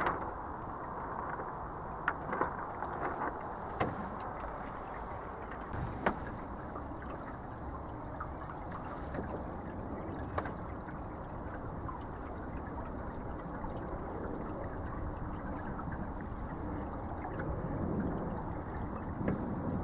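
Water lapping and trickling against a small sailing boat's hull in light wind, a steady wash broken by a few sharp knocks in the first half and one about halfway through.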